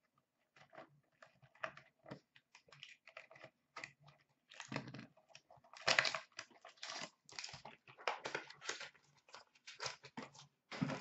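Cardboard 2014-15 Upper Deck SP Game Used hockey card box being handled and opened by hand: a run of light taps, scrapes and rustles of cardboard and wrapper, busier and louder in the second half.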